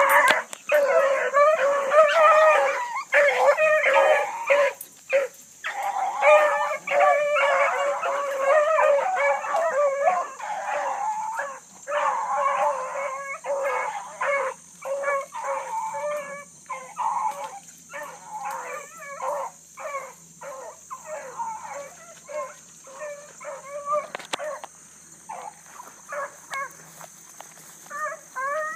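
A pack of bluetick coonhounds bawling on the track of a running rabbit, many voices overlapping in a continuous chase chorus. The voices get fainter after about twelve seconds and grow louder again near the end.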